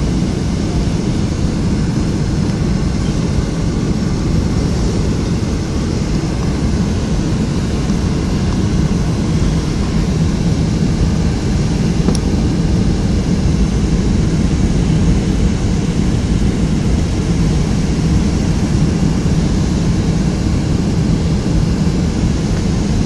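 Steady jet engine and airflow noise inside the cabin of a Boeing 757-200 in flight, a deep, unchanging rumble.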